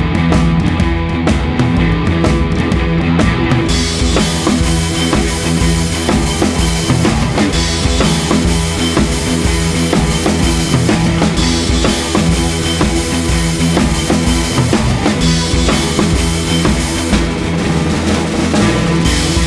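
Background rock music with a steady drum-kit beat; cymbals come in about four seconds in.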